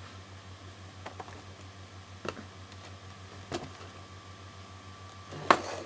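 Scissors snipping the twist ties that hold a toy in its plastic packaging: a few separate sharp snips about a second apart, then a louder snip and rustle of packaging near the end.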